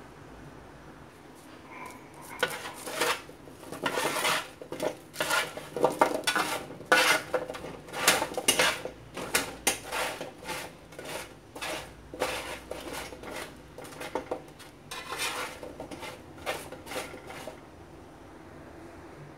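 A metal utensil scraping and clinking on a parchment-lined baking tray while chunks of raw pumpkin are tossed on it. The clatter comes in irregular clusters, starting about two seconds in and dying away near the end.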